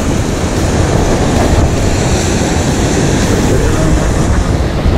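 Strong wind buffeting the microphone over heavy surf breaking on the rocks, a loud steady rush.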